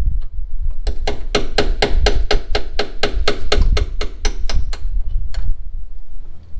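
Hammer striking the steel door hinge of a Chevy Tahoe's rear barn door in a fast, even run of sharp metallic knocks, about four a second, then one last knock: knocking out the worn-out hinge bushing.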